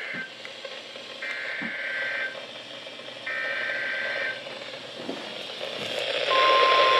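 Emergency Alert System SAME data header over NOAA Weather Radio: the end of one buzzy digital burst and then two more, each about a second long with a second between them. About six seconds in, the steady 1050 Hz warning alarm tone comes on with radio hiss, the signal that a warning such as a severe thunderstorm warning follows.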